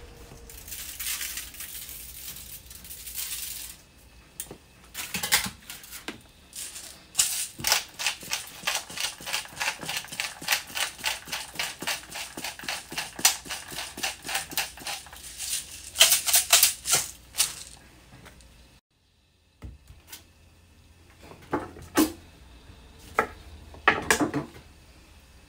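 Seasoning being shaken or ground over a tray of asparagus: a quick, even run of clicks, about four a second, lasting some ten seconds. There is a short hiss near the start.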